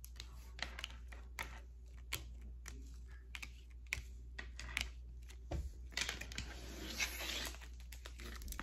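Tarot cards being handled: scattered light clicks and taps as cards are turned and laid down, with a longer rustle of the deck being shuffled about six seconds in, over a low steady hum.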